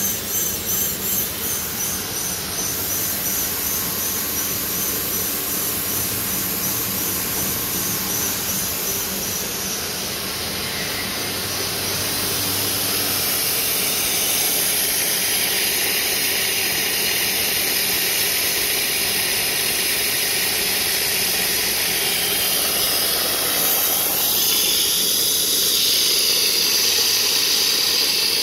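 3D-printer filament extrusion line running: a steady machine hum under a strong high hiss, with a fast even pulsing of about three or four beats a second in the first two seconds. The hiss grows louder about halfway through and again near the end.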